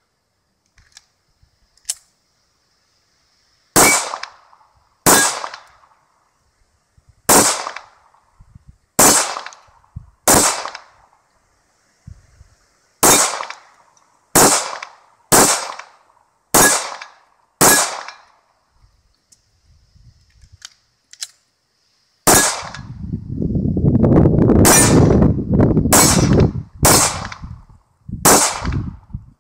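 CZ75 Shadow SP-01 9mm pistol firing single shots, about fifteen in all, spaced a second or two apart, with a pause of a few seconds in the middle. Near the end a loud low rumble of wind on the microphone runs under the last few shots.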